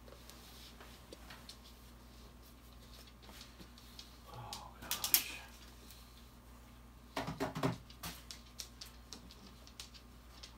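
Quiet room with scattered light clicks and short rustling, knocking noises of someone moving about and handling bedding. The loudest is a brief cluster of knocks a little after seven seconds in.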